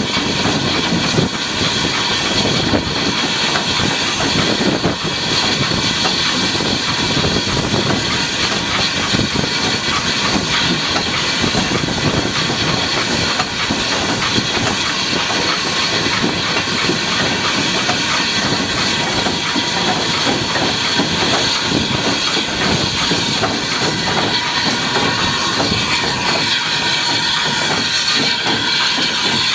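Small industrial saddle tank steam locomotive running along the line, heard from close up on its own running board: a steady hiss of steam over the rumble and clatter of the engine and its wheels on the rails.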